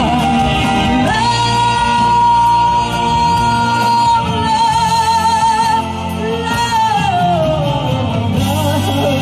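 A song with backing music, over which a singer holds one long high note that begins to waver about halfway through and then slides down in pitch.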